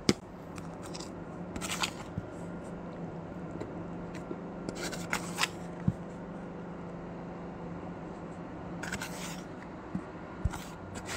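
Spoon scraping into frozen matcha-powdered ice and soft, powdery crunching as it is eaten, in a few short bursts spread across several seconds, over a steady low hum.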